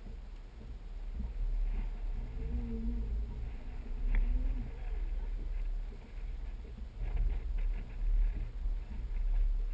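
Uneven low rumble of wind buffeting the deck-mounted camera's microphone, with water slapping against a bass boat's hull. About two seconds in a brief low humming tone rises out of it for roughly two seconds, and there is a single sharp click near the middle.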